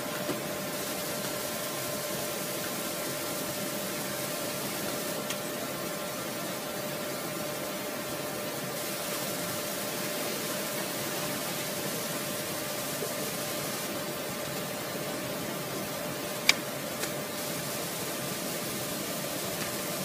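Steady hiss from the recording with a few faint, constant steady tones under it, and one sharp click about sixteen seconds in.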